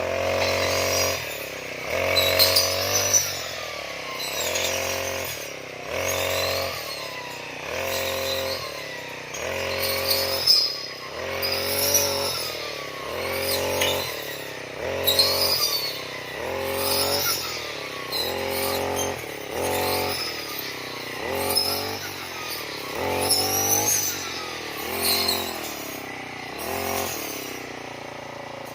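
Grass cutter (brush cutter) engine revving up and dropping back over and over, about every one and a half to two seconds, as it cuts grass.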